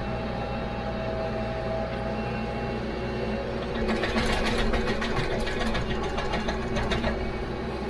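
TYM T574 compact tractor's diesel engine running steadily while it pulls a land plane. About four seconds in, a louder rapid crackling rattle of dirt and stones scraping under the land plane's blade lasts about three seconds, then eases off.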